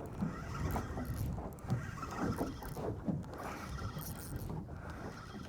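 Quiet sounds aboard a small boat on the water: water lapping with scattered small knocks and clicks.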